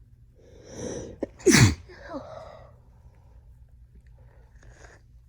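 A woman with a heavy cold sneezing once. A gasping in-breath builds for about a second, then comes one loud, explosive sneeze whose voice drops sharply in pitch, and it trails off.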